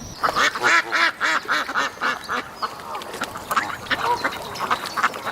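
Ducks quacking, a quick run of short calls about three a second that overlap one another, loudest in the first second and a half.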